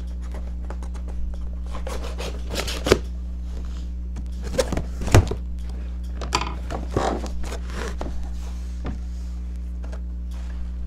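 A cardboard packaging box being opened and handled: scattered rustling and a few knocks, the loudest about five seconds in, over a steady low hum.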